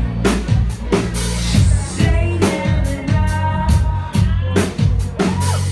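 Live band playing loudly: a drum kit beating quick, dense hits over steady bass and guitar, with a vocalist on the microphone.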